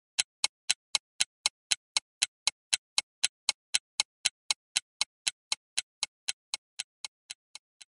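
Clock-like ticking sound effect of even, sharp ticks, about four a second, that fade away near the end: a countdown timer running while the chart waits for a phoneme to be chosen.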